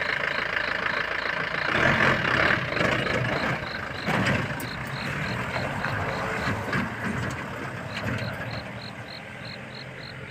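A vehicle engine running, louder in the first few seconds and slowly fading toward the end, with an insect chirping in a steady pulse about three times a second.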